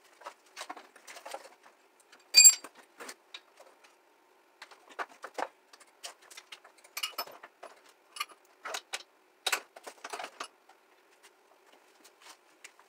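Metal parts and tools clinking and rattling as a stripped-down moped is worked on by hand: scattered clicks and knocks, with one sharp, ringing metallic clink about two and a half seconds in.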